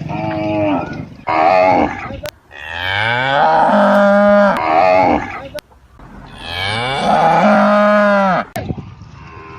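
Cattle mooing: two short moos, then two long drawn-out moos that rise in pitch at the start and then hold steady.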